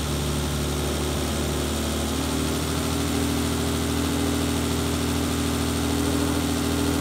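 BMW E30's inline-six engine with individual throttle bodies idling steadily. Its note rises slightly about two seconds in as a pair of throttle bodies is opened during airflow synchronisation, lifting the idle speed.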